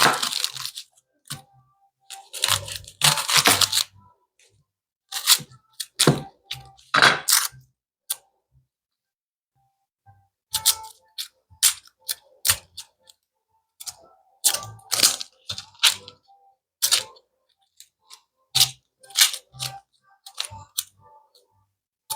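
Kitchen knife chopping onions on a cutting board: irregular sharp taps and crunches in clusters, with a pause of about two seconds near the middle.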